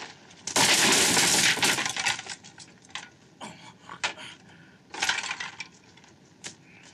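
A loud crash of things breaking as a body is thrown into them, followed by scattered pieces clattering down, and a second, shorter crash about five seconds in.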